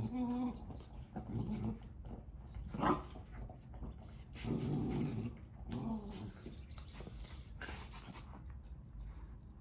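A dog making low, drawn-out growling grumbles, Chewbacca-like noises, at a squeaky ice-cream-cone toy, which squeaks in quick high-pitched runs again and again. The squeaking stops about a second before the end.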